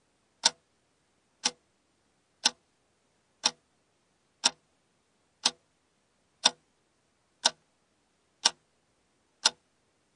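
Ticking-clock sound effect: one sharp tick every second, evenly spaced, counting off the seconds of a countdown timer.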